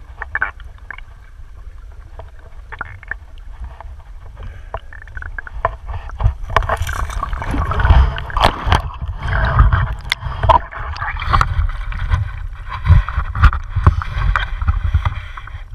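Water churning and gurgling around a landing net held underwater, over a low rumble, with many sharp knocks and clicks. These grow busier and louder from about six seconds in.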